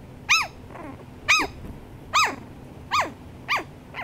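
Shih Tzu barking: about six short, high-pitched barks, about a second apart at first and coming quicker toward the end.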